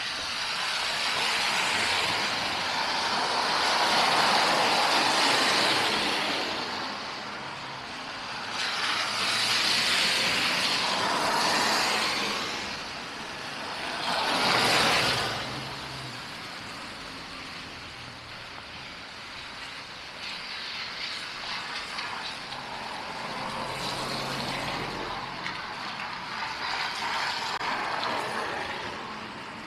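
Street traffic: vehicles passing one after another, their tyre and engine noise swelling and fading. A short, louder pass comes about fourteen seconds in, and a lower steady traffic noise follows.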